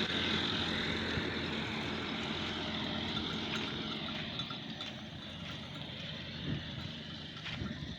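A motor vehicle engine running steadily and slowly fading away, with a few faint clinks in the second half.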